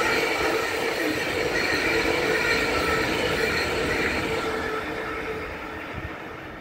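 DB Regio class 442 (Bombardier Talent 2) electric multiple unit passing close by, a steady rolling rumble with a whine over it, fading over the last couple of seconds as it moves away.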